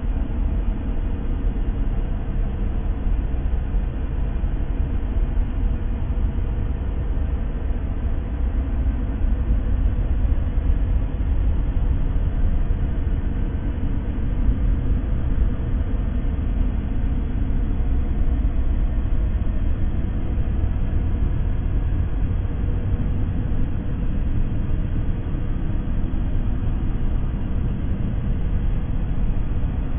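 Steady ambient white-noise track, a constant deep rumbling hiss heaviest in the low end that does not change.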